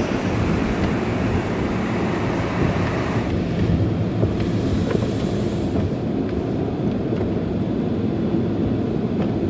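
Automatic car wash machinery running around the car, heard from inside the cabin as a steady rushing noise. Its hiss drops away about three seconds in, leaving a low rumble.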